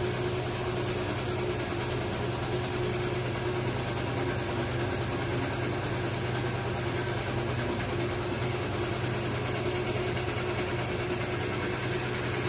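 Steady electric hum of a barcode sticker making machine running, an even drone with no breaks.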